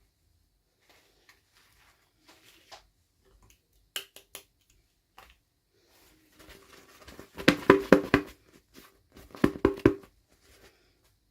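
Hands handling small plastic toy pieces and packaging: scattered light clicks, then two bursts of rapid rattling clicks, about seven and nine and a half seconds in.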